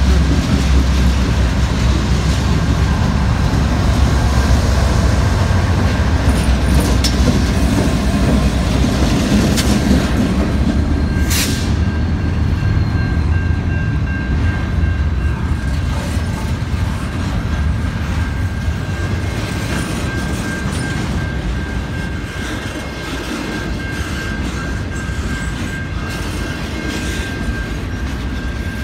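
Freight train passing close by: the low rumble of the diesel locomotives going by gives way to the rolling of double-stack container cars, slowly easing in loudness. About a third of the way in, a steady high-pitched squeal sets in and holds, and a single sharp click is heard.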